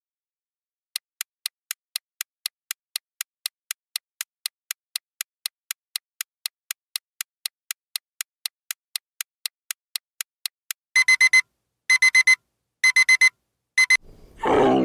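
Clock ticking steadily, about four ticks a second, counting down, then an alarm clock ringing in three short bursts of rapid high beeps. A camel's low groan begins near the end.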